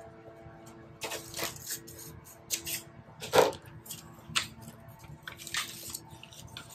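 Butcher paper rustling and crinkling as it is snipped with scissors and tucked into a onesie's sleeve: a string of short, irregular crackles, the loudest about three and a half seconds in.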